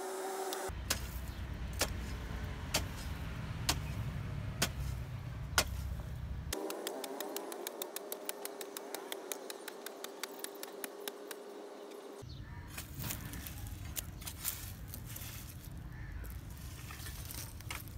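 Metal hoe blade chopping into dry, clumpy soil, about one blow a second. In the middle comes a stretch of quicker, lighter scraping strikes over a faint steady hum.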